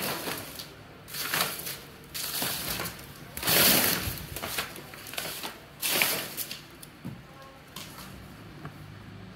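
Packing paper and a cardboard box rustling and scraping as they are handled, in four short bursts, the loudest about three and a half seconds in.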